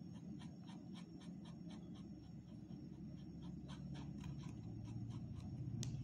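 Felt-tip sketch pen drawing on a wooden ice-cream stick: a quick series of faint scratchy strokes, about four a second.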